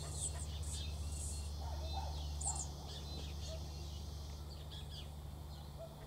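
Birds chirping and calling in the trees: scattered short high chirps, a brighter double chirp about halfway, over a low steady hum.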